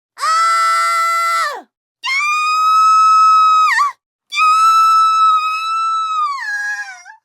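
Three separate long, high-pitched screams with short silences between them. Each holds a steady pitch and drops at the end; the last, longest one slides down in pitch near the end.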